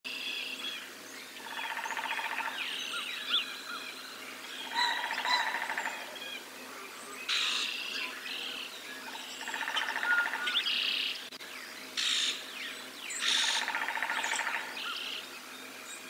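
Dawn chorus of songbirds singing and calling together. One song comes back every few seconds among scattered higher chirps and whistles.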